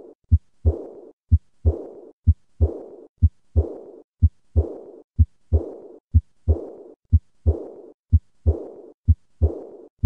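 Heart sounds of aortic regurgitation at about one beat a second. Each beat is a pair of short low heart sounds, and the second is followed at once by a high-pitched diastolic murmur that fades away before the next beat. Heard at the lower right of the sternum, this murmur points to aortic root disease such as an aortic aneurysm.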